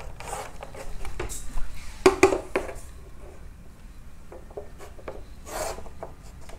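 Chalk scraping across a chalkboard in a series of short strokes, with a long ruler used as a straightedge rubbing against the board as a dashed centre line is drawn.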